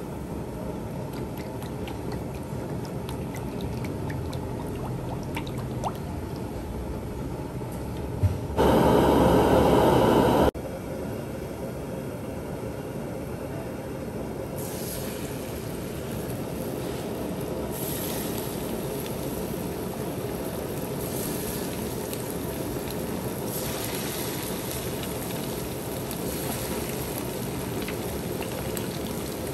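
Fish frying in oil: a steady sizzle that turns brighter and patchier from about halfway through. A loud rush of noise lasting about two seconds comes about a third of the way in.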